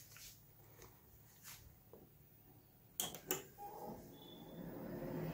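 Two sharp clicks, then a desktop computer's cabinet fan starting up, its whirring noise rising steadily towards the end; the owner puts the noise down to dust built up in the fan.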